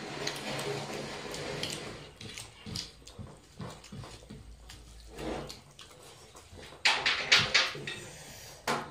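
Wet eating sounds: rice and curry mixed by hand on steel plates and chewed, with scattered small clicks and a short run of louder sharp sounds about seven seconds in.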